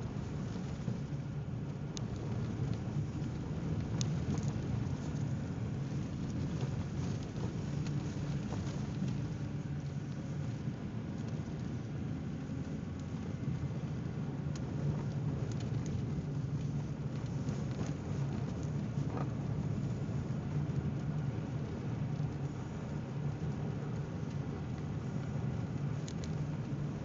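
Steady low rumble of a car heard from inside the cabin as it drives over a snow-packed road: engine and tyres rolling on snow, with a few faint clicks.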